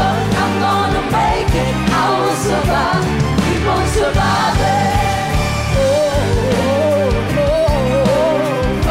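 Female vocal group singing a pop song live into handheld microphones over a loud backing track with a heavy, steady beat.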